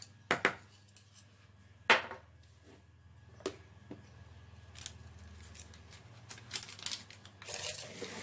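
Small metal spoon clinking and scraping against a plastic mixing bowl while scooping thick whipped cream mixture, with a few sharp clicks, the loudest about two seconds in. A denser patch of small rustles and clicks comes near the end as the bowl is moved.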